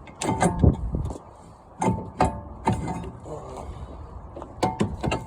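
Metal clanking and knocking as a Jeep Cherokee XJ's brake caliper is worked off: several separate clanks, each with a short metallic ring.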